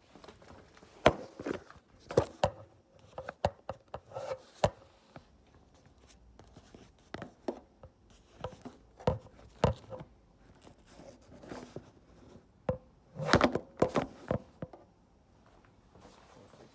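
Irregular taps, knocks and clatter of objects being handled and set down on a hard work surface, louder in a burst about a second in and in a dense cluster around thirteen to fourteen seconds in.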